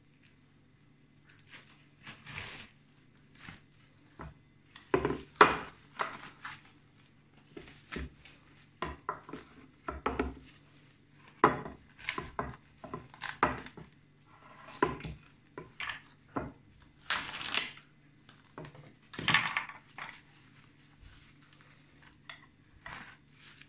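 Plastic cling film being pulled off its roll, torn and pressed around a bowl: irregular crinkling and crackling, with louder rips now and then.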